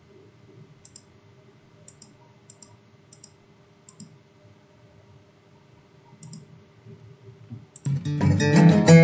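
A few faint computer mouse clicks over a low steady hum, then about eight seconds in guitar music starts loud and strummed.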